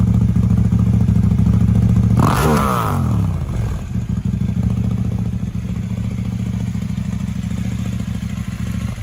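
KTM 890 Duke R's parallel-twin engine idling through an Austin Racing decat slip-on exhaust, blipped once about two seconds in: the revs rise and fall back quickly before it settles into a steady idle again.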